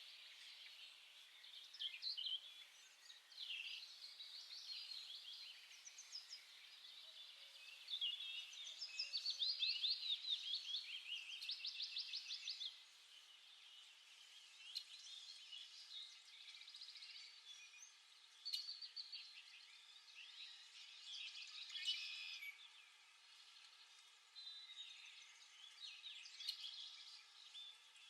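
Small birds chirping and twittering, several calls overlapping, with a loud run of fast repeated trilled notes about nine to twelve seconds in.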